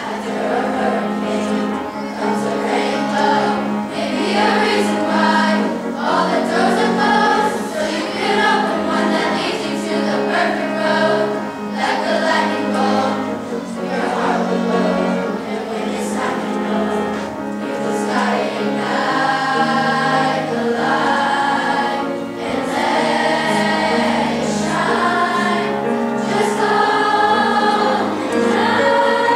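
Youth choir of mixed voices singing a pop song arrangement in parts, over held low accompaniment notes that change every few seconds.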